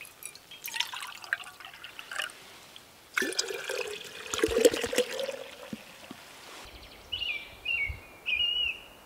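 Liquid poured from a large plastic bottle into a glass jar, a splashing pour of about three seconds starting a few seconds in, its pitch rising slightly as the jar fills. A bird calls several times near the end.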